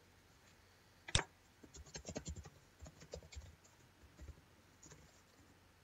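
Computer keyboard being typed on, faint: a sharp click about a second in, then quick runs of light keystrokes.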